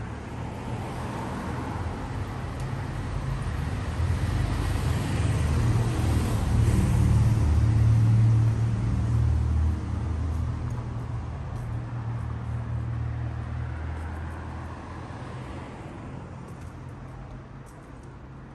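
A motor vehicle passing on a city street: a low engine rumble with road noise that grows louder, peaks about eight seconds in, then fades away.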